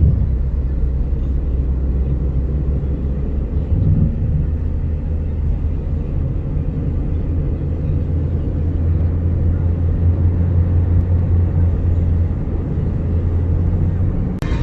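Car in motion heard from inside the cabin: a steady low rumble of road and engine noise, shifting slightly about four seconds in.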